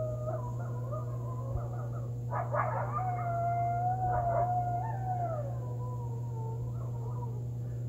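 Coyotes howling: several long, wavering howls overlap, with bursts of yipping about two and a half and four seconds in. The howls slide down in pitch and die away near the end.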